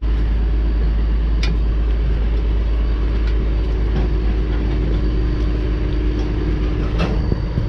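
Steady, loud low mechanical rumble of running machinery, with a few short sharp knocks, one about a second and a half in and more near the end.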